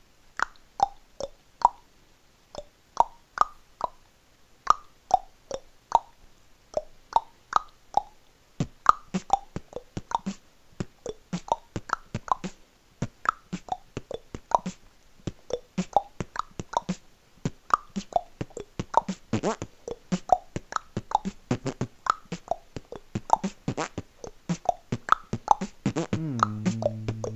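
Human beatboxing: a vocal percussion beat of 'B' kick drums, 'Klack' clicks and 'Pf' snares, sparse at first and a denser steady rhythm from about nine seconds in. Near the end a low buzzing lip bass, 'brrrb', comes in and is held under the beat.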